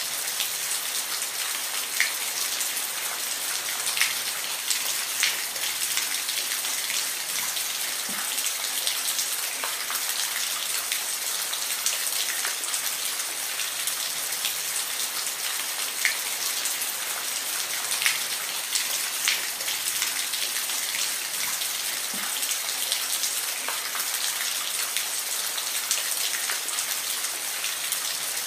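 Steady rain falling, an even hiss with scattered louder individual drop hits every second or two.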